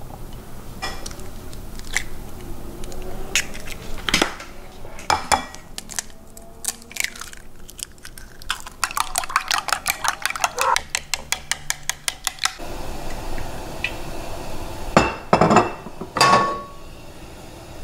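Kitchen clatter: scattered knocks and clinks, then from about halfway a utensil beating raw eggs in a ceramic bowl, a fast run of clinks lasting about four seconds. A few louder clinks near the end, one ringing briefly.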